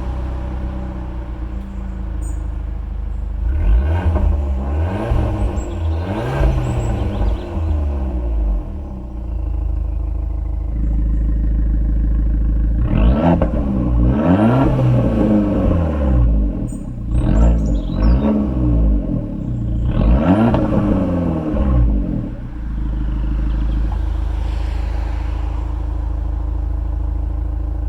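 Abarth 595 Competizione's 1.4-litre turbocharged four-cylinder idling and being revved through its exhaust in quick free-rev blips: a first group of blips in normal mode, then, after the idle turns fuller and louder about ten seconds in, about four more blips in Abarth mode, dropping back to idle after each.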